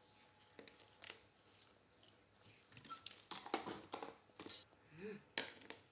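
Faint crinkling, tapping and rustling of food being handled on a table, busier in the second half, with a short pitched vocal sound about five seconds in.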